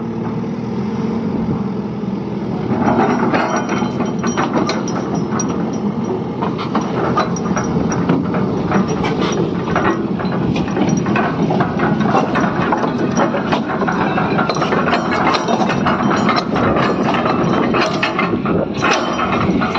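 Excavator working: engine running under continuous metallic clattering and clanking, which grows denser about three seconds in.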